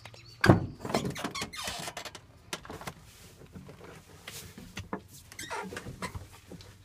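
Cab door of a 2008 International 4300 truck unlatched and swung open, with a sharp clack about half a second in, followed by knocks and rustling as someone climbs up into the cab.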